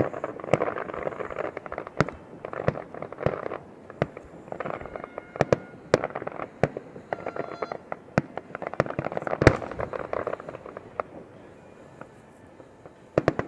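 Aerial fireworks going off in quick succession: sharp bangs and booms over a bed of crackling. The bangs thin out near the end, then a quick cluster of several bangs comes right at the close.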